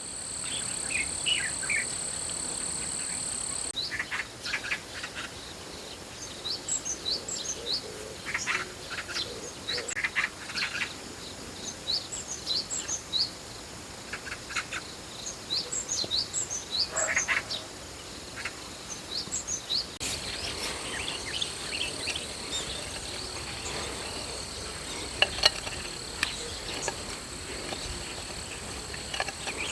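Outdoor insect chorus, a steady high trill, which cuts off about four seconds in. It gives way to small birds chirping in quick, short calls. The insect trill returns abruptly about two-thirds of the way through.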